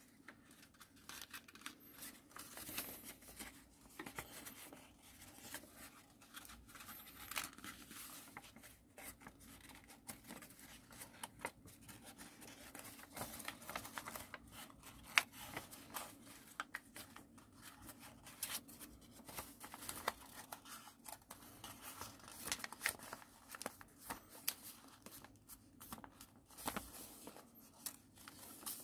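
A sheet of paper being folded and creased by hand for an origami model: soft rustling and crinkling with many small sharp crackles, the loudest just past halfway.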